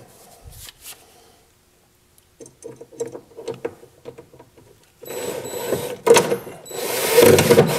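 DeWalt cordless drill driving a screw through a metal shelf standard into a wooden cabinet side. Small handling clicks come first; the motor starts about five seconds in, stops briefly, then runs again, louder.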